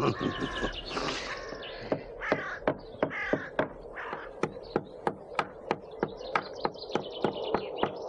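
Birds calling with harsh caws, over a regular sharp knocking of about three knocks a second that starts about two seconds in.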